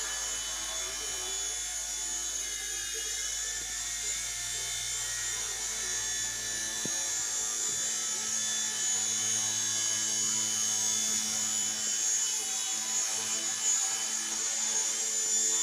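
Micro indoor RC helicopter's small electric motors and rotors running with a steady high whine.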